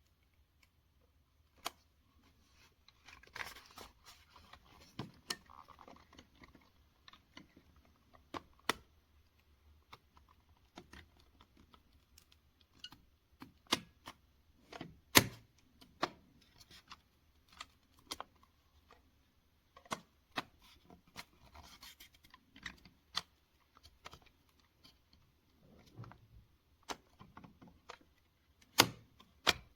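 Small objects being handled at close range: irregular sharp clicks and taps with soft rustling and scratching in between.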